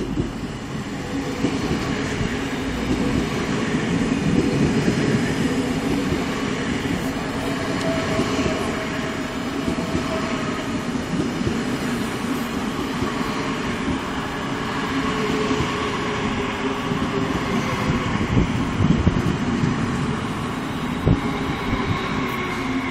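A Stuttgart S-Bahn electric multiple unit running past along the platform at close range: a steady rumble of wheels on rail with a humming tone, and a few sharp knocks near the end.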